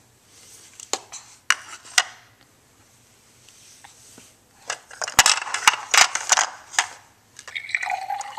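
Plastic toy tea-set pieces clattering and knocking on a table: a few separate knocks in the first two seconds, then a quick run of clatter from about five to seven seconds in.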